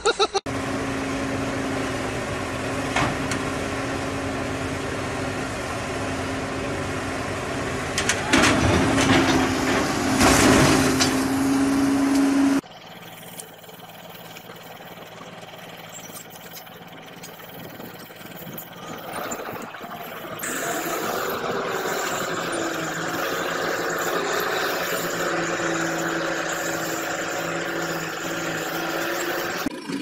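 Diesel engines of heavy machinery running in successive clips: first a dump truck with its tipper body raised, a steady drone with a louder rumble from about 8 to 12 seconds in, then a sudden drop to the quieter, wavering running of a crawler bulldozer.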